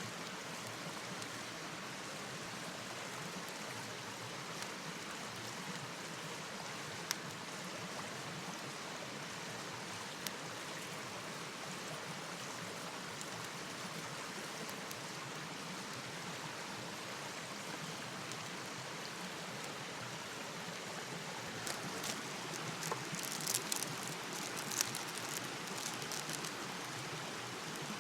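Steady hiss of rain falling. A few sharp ticks are scattered through it, and a cluster of clicks and taps comes near the end.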